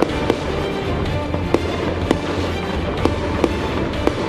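Fireworks bursting and crackling in sharp pops about every half second, mixed with loud background music.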